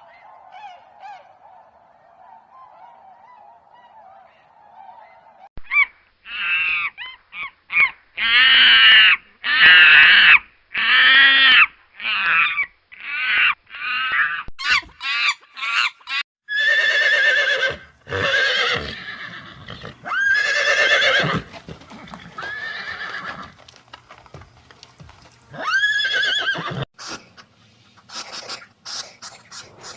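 Geese honking in a quick series of loud calls, followed by several longer animal calls.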